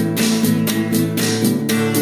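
Instrumental rock music: guitars over bass and a drum-machine beat of about four hits a second.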